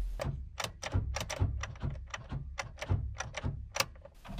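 A string of irregular clicks and light clunks, pausing a little past halfway, as the key is turned to try to start a 2002 Honda Civic Type R's K20 engine that has been killed by concrete: it does not start.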